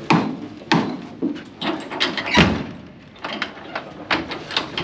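A truck's wooden drop-side tailgate being swung up and shut by hand: a string of knocks and bangs at uneven intervals, the loudest about two and a half seconds in.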